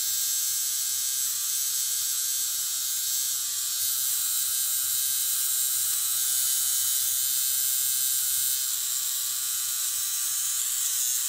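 Battery-powered Flawless Brows eyebrow hair remover running steadily as it is moved over the brow, a thin high-pitched electric whine that shifts slightly in tone a couple of times.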